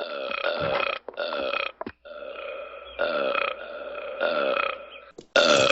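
A person belching repeatedly: about five long belches of roughly a second each, one after another with short gaps between them.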